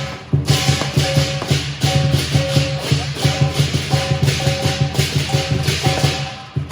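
Lion dance percussion: a drum beaten fast and steadily together with clashing cymbals, with a short break just after the start.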